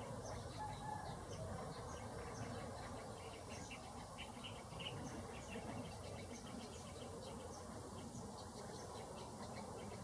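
Outdoor ambience: a steady stream of short, high chirps and ticks, several a second, from small birds or insects, over a low, steady rumbling background.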